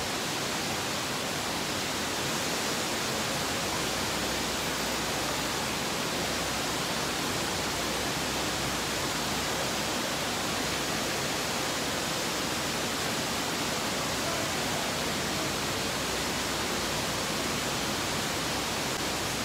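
A steady, even hiss at a constant level, with no distinct knocks or other events.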